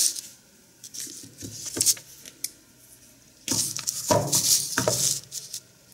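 Handling noise of a metal multitool (combination pliers) being turned and moved about close to the microphone: rustling with light clicks and metallic jingles in a few short spells, the longest about three and a half seconds in.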